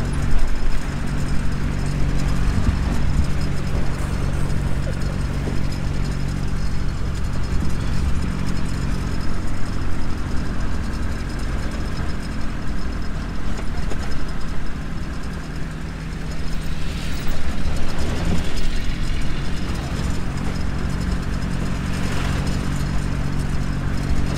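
Jeep engine running with road noise, heard from inside the cabin while driving. It is steady, with a brief drop in the engine note about two-thirds of the way through before it picks up again.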